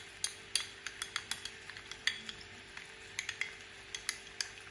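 Metal spoon stirring cornstarch into water in a small drinking glass, clinking irregularly against the glass, over a faint steady hum.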